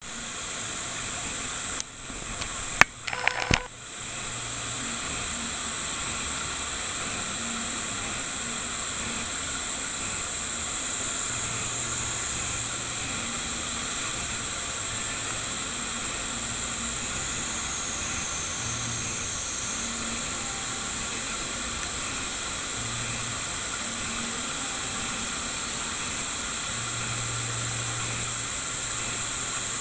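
Steady high-pitched hiss, strongest in a narrow high band, with a faint low hum underneath. A few sharp clicks come about two to four seconds in.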